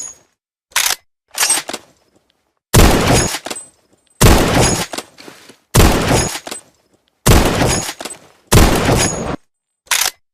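M1903 Springfield bolt-action rifle firing five shots about a second and a half apart, each a sharp crack with a short trailing echo. Shorter clacks of the bolt being worked come before the first shot and after the last.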